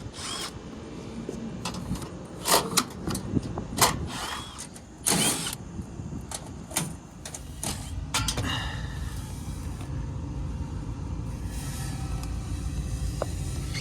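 A run of sharp clanks, knocks and clicks of metal parts being handled on a rooftop HVAC unit, then a steady low mechanical rumble from about eight seconds in.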